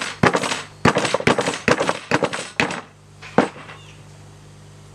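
Wooden baton knocking repeatedly on the spine of a knife, driving the blade down into the end of a green-wood stick to split a slit. A quick run of about a dozen knocks, then one last knock after a short pause.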